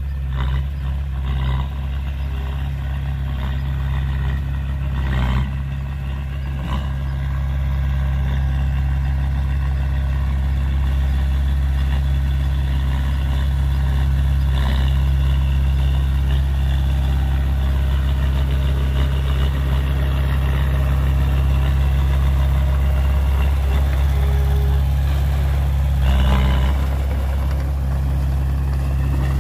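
Small crawler bulldozer's diesel engine running steadily as it pushes soil with its blade. The engine grows louder about eight seconds in, and a few short clanks come through, the loudest near the end.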